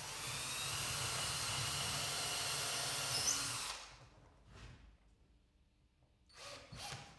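Cordless drill running steadily for about four seconds as a small pilot bit bores through a wooden stop into the board beneath, then stopping. A few faint, brief handling noises follow near the end.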